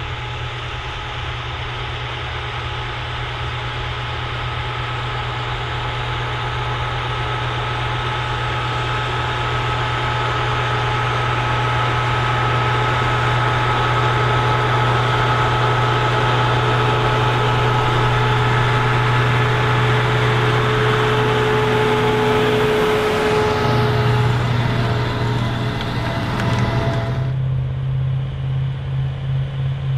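Big articulated farm tractor's diesel engine working steadily under load, growing louder over the first dozen seconds. About 27 seconds in, the sound changes abruptly to a duller, rhythmically throbbing engine note.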